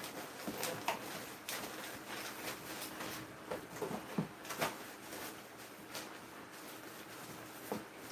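Light rustling and scattered clicks of a plastic bag and small items being handled and packed into a cardboard box.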